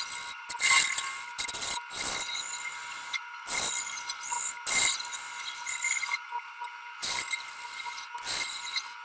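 Wood lathe spinning a wooden handle blank while a turning tool cuts it, making a series of short scraping cuts at irregular intervals over a steady high whine.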